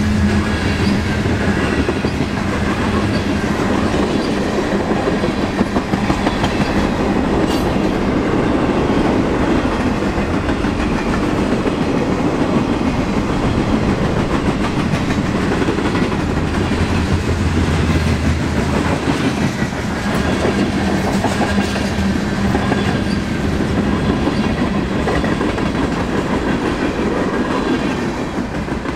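Mixed freight train's boxcars, covered hoppers and tank cars rolling past: a steady, loud rumble of steel wheels on rail with continuous clickety-clack over the rail joints, easing slightly near the end.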